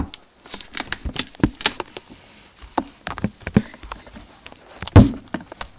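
Irregular sharp clicks, taps and knocks, with one louder thump about five seconds in.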